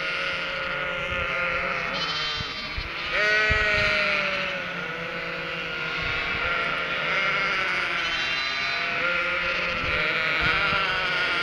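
A flock of Cotswold ewes and their three-week-old lambs bleating continuously, many calls overlapping. The loudest call comes about three seconds in. The flock is calling out for the feed it expects from the farmer.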